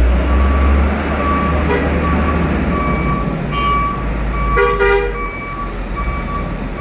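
Heavy trucks running with a deep engine rumble, while a reversing beeper sounds over and over. A horn toots briefly about halfway through, then again for about half a second.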